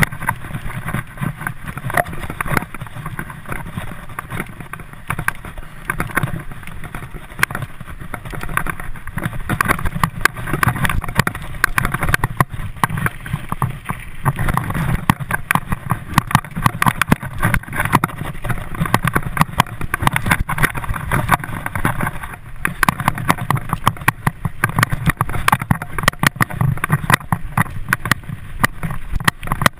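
Mountain bike riding fast over a bumpy dirt singletrack: continuous tyre rumble with constant irregular rattling and knocking as the bike bounces over the ground.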